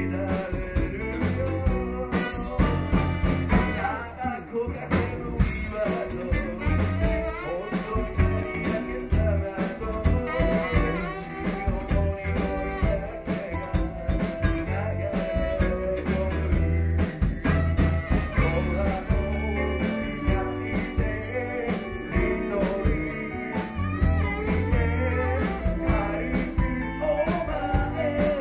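A man singing a Japanese pop song over a backing track with a drum kit and guitar.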